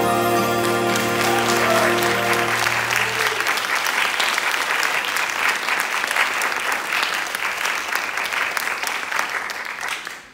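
A jazz band of saxophones and brass holds its final chord, cut off about three seconds in, while the audience starts applauding; the applause carries on and fades near the end.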